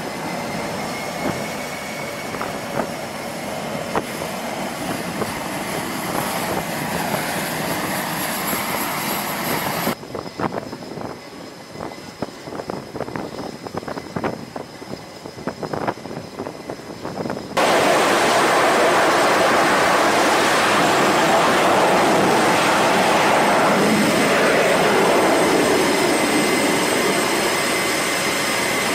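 Jet engines running on an aircraft carrier flight deck, a steady noise. About ten seconds in it drops to a quieter stretch of scattered clicks and knocks, then loud steady jet noise returns suddenly at about eighteen seconds in.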